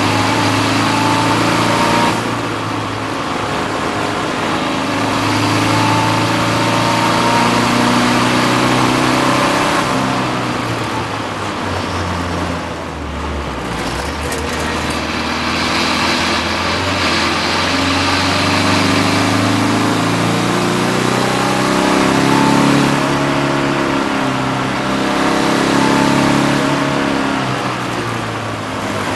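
BMW 330d race car's diesel engine heard from inside the cockpit at racing speed, the revs climbing and falling with gear changes, with wind and road noise. About halfway through, the revs and loudness drop for a corner, then climb again.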